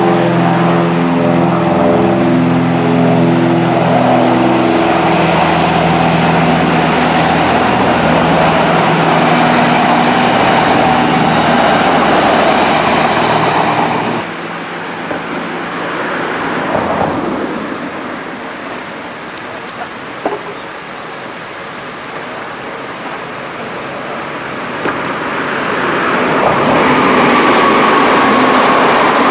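An Odakyu electric commuter train running past close by, its motors whining in several steady pitches over the rush of its wheels on the rails. This cuts off suddenly about halfway to a quieter background. Near the end another train approaches, its rail noise swelling with a high whine.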